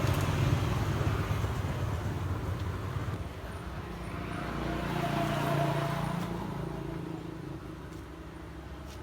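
Road traffic noise: a motor vehicle rumbling past, growing louder to a peak about midway and then fading away.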